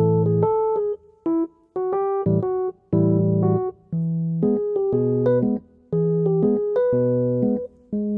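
Background music: a light electric-piano tune of short chords over a bass line, with brief pauses between phrases.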